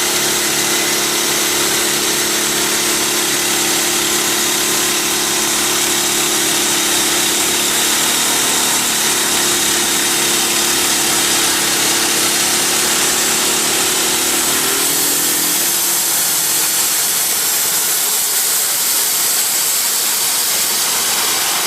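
Wood-Mizer band sawmill running under load, its engine droning steadily while the band blade cuts through a log with a constant hiss. The engine note falls about fifteen seconds in.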